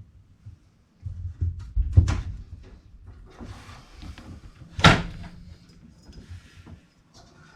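A series of knocks and thumps, with two loud thuds about two and five seconds in and some scraping and rustling between them.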